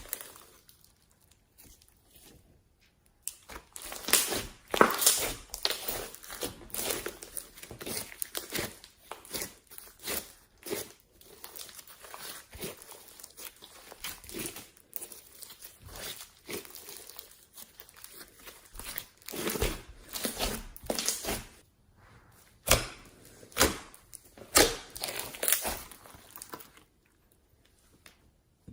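Slime being squeezed and kneaded by hand: irregular sticky crackles, pops and crinkles, pausing briefly near the start and again near the end.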